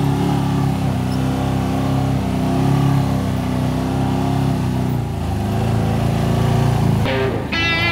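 Side-by-side UTV engine running under load through mud, its pitch rising and falling with the throttle. Guitar music comes in near the end.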